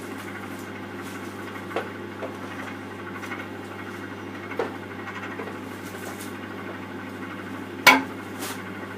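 Microwave oven running with a steady hum while heating a bar of soap, with a few light clicks and one sharper knock about eight seconds in.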